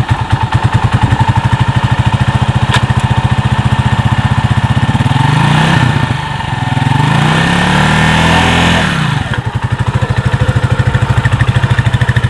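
Rusi motorcycle tricycle's engine running at a pulsing idle, then revved twice about halfway through, its pitch rising and falling as the tricycle pulls away, before dropping back to a pulsing idle.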